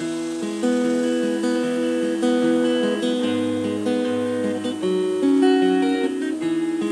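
Acoustic guitar playing the instrumental introduction of a folk song, picked notes ringing into one another.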